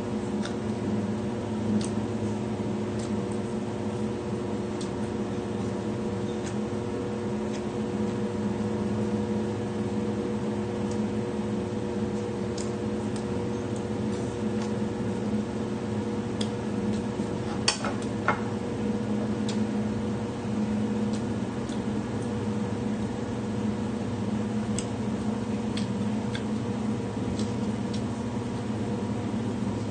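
A steady hum with several fixed tones runs throughout. Over it are scattered faint clicks and taps of hand-eating from a plate, and a brief sharp clatter of dishware a little past halfway.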